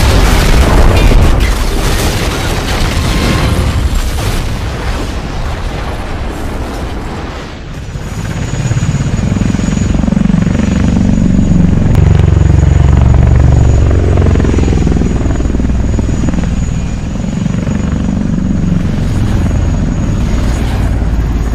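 Loud, dense crashing noise for the first several seconds, then, from about eight seconds in, a steady low pulsing mechanical drone like a heavy engine or rotor.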